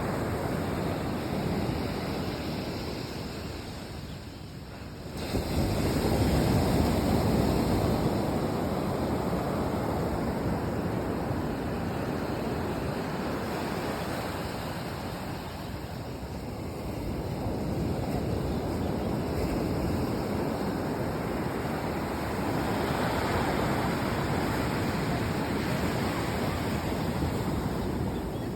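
Sea waves breaking and washing in, a steady surf noise that swells and eases, with one loud wave breaking about five seconds in.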